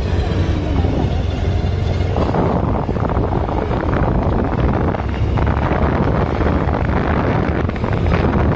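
Wind buffeting the microphone while riding a motorized two-wheeler along a road, a heavy steady rumble over the bike's running and road noise.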